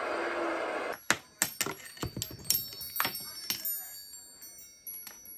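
Metal wind chimes being struck again and again: about ten sharp clinks over some four seconds, each leaving high bright ringing tones that overlap and slowly die away. Before them, for about the first second, loud TV sound runs and then cuts off suddenly.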